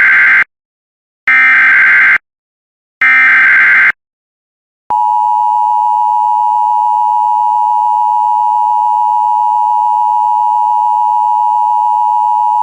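Emergency Alert System broadcast tones: the last of three short, buzzy bursts of SAME data-header tones, about a second each with short gaps between. About five seconds in comes the EAS attention signal, a steady two-tone alarm that holds to the end, announcing a tornado warning.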